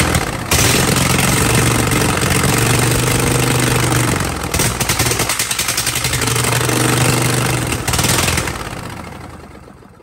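Briggs & Stratton 26 HP V-twin lawn tractor engine running steadily after starting, briefly uneven for a moment around the middle. About eight and a half seconds in it shuts off and winds down to a stop.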